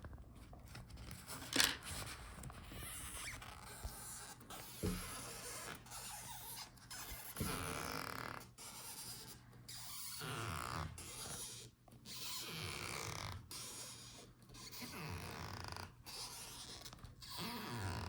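Stretch-release adhesive strip being slowly pulled out from under a laptop LCD panel: irregular rubbing and stretching noises, some sliding in pitch, with a sharp click about a second and a half in.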